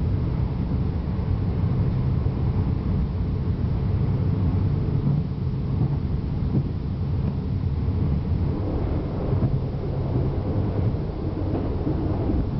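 Northern Ireland Railways C3K diesel multiple unit running along the line, heard from inside the carriage: a steady low rumble.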